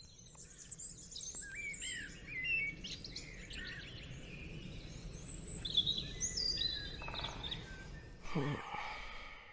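Many small birds chirping and twittering, a morning chorus, over a low steady background hum. Near the end a louder call sweeps steeply down in pitch.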